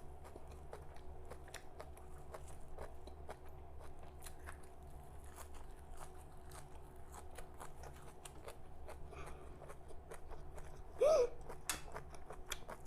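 Close-up chewing of raw vegetables: a steady run of small crisp crunches and wet mouth clicks. There is a short hummed vocal sound about eleven seconds in.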